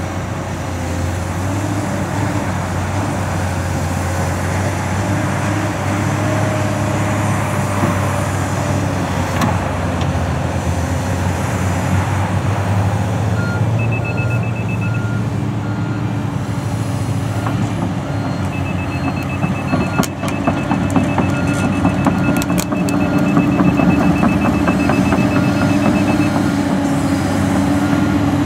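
Komatsu PC228USLC hydraulic excavator's diesel engine running steadily under load while it works. From about halfway in, a fast, evenly pulsed warning beeper sounds, with a few sharp metallic clanks a few seconds after it starts.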